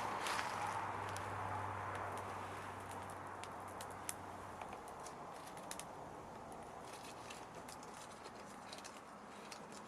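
Wood campfire crackling with scattered sharp pops and ticks over a hiss that fades over the first few seconds; a low hum stops about halfway through.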